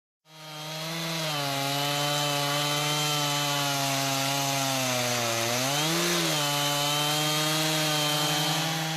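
Chainsaw running at steady high revs, cutting along a log in a Norwood Portamill chainsaw mill. It fades in at the start, and its pitch dips a little and then briefly rises and settles about six seconds in.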